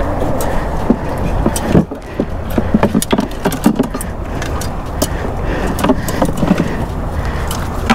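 Steady rumble of road traffic on the nearby highway bridge, with scattered sharp clicks and knocks.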